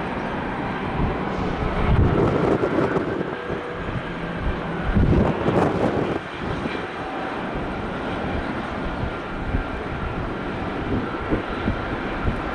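Jet airliner engines, a steady rushing noise that swells a little twice.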